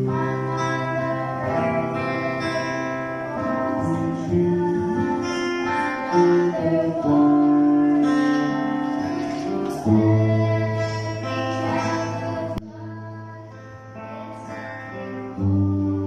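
Female voices singing a gospel song over a strummed acoustic guitar. About three-quarters of the way through, a click cuts the voices off and the guitar carries on quietly, and the singing comes back in just before the end.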